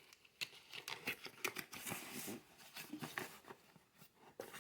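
Faint rustling and crinkling of paper and cardboard packaging being handled, with scattered light clicks and a denser crinkly stretch about two seconds in.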